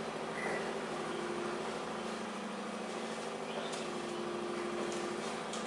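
Steady mechanical hum with constant tones over an even hiss, and a few faint clicks in the second half.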